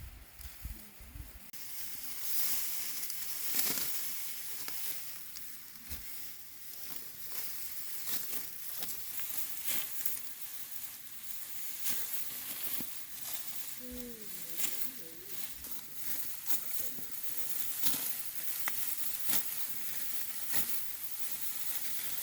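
Dry rustling of rice stalks with many sharp, crisp snaps, typical of ripe rice being cut and gathered by hand.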